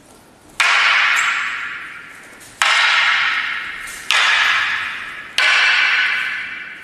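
Hard wooden bo staffs clacking together four times, unevenly spaced. Each sharp crack rings out and fades over about a second and a half in a reverberant hall.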